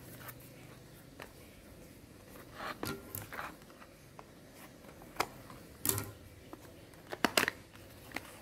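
Small cardboard product box handled and opened by hand: scattered rustles and sharp taps of card and paper. They come in clusters, the loudest in the second half.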